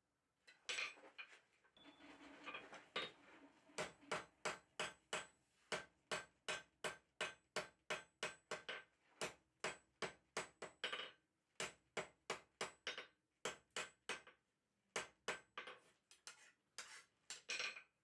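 Faint hammer blows on hot steel at the anvil, setting a forge weld in two scarfed bars. A few soft knocks and scraping come first. From about four seconds in the blows run steadily at about three a second for some ten seconds, then pause briefly and return for a few more blows near the end.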